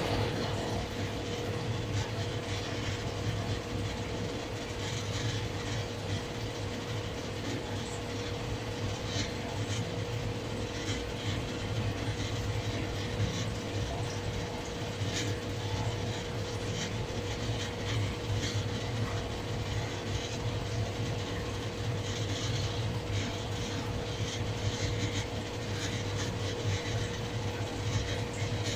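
Steady hum of reef-aquarium equipment such as pumps, with a constant low drone and a higher steady tone, under a haze of faint irregular clicks and crackles.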